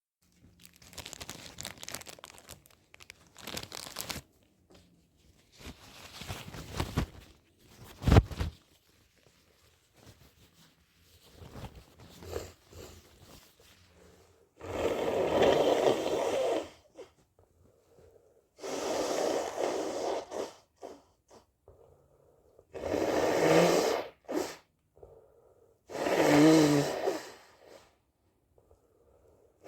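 A person blowing their nose hard four times, each blow about two seconds long. Before them come quieter rustling and crinkling noises and a single sharp knock.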